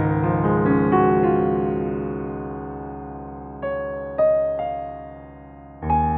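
Background music: a soft piano playing slow, sustained chords and single notes that ring out and fade, with a new chord struck near the end.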